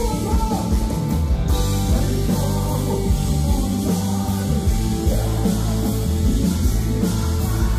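A live gospel band playing loudly through a concert sound system, with drums, bass and sustained chords, and voices singing over it.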